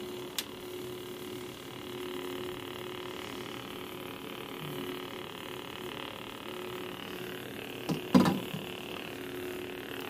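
Teensysaber lightsaber hilt's speaker playing its steady, low electronic idle hum, with one short louder burst about eight seconds in.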